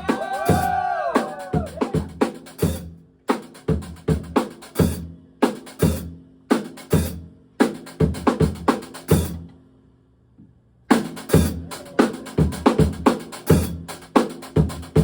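Funk band playing a tight stop-start groove: a drum kit's kick and snare hits over electric bass notes. A note bends up and down in pitch during the first second or so, and the band drops out for about a second about two-thirds of the way in before coming back in.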